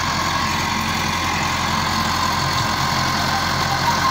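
Massey Ferguson 385 tractor's four-cylinder diesel engine running steadily, pulling a potato digger through the field.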